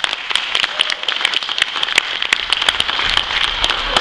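Audience applauding: many hands clapping steadily, with a scatter of louder single claps standing out.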